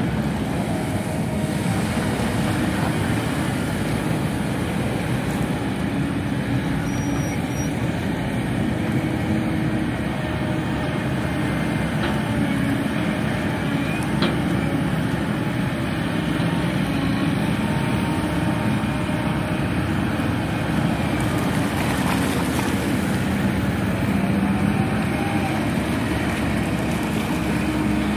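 Steady engine drone without a break, heaviest in the low range, with a faint wavering tone now and then.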